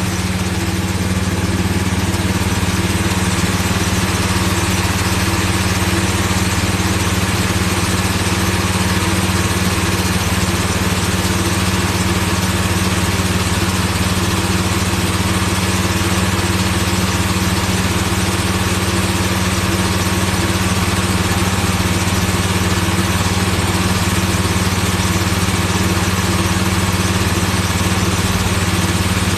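Portable generator engine running at a steady speed, an even, unchanging engine hum.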